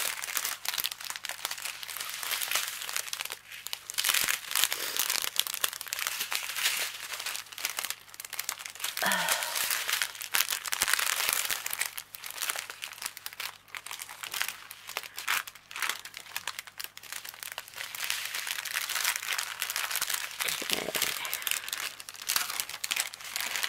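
Clear plastic bags and sheeting, the packets of diamond painting drills and the canvas cover, crinkling and rustling as they are handled, with short pauses.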